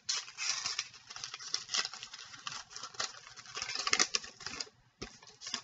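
Trading-card pack wrapper crinkling and tearing as it is opened by hand, in a run of crackly bursts, loudest about four seconds in.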